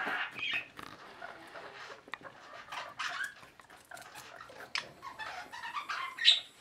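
Baby skinny guinea pig chewing a piece of raw beet: irregular small wet crunches and clicks, with the loudest crunch near the end.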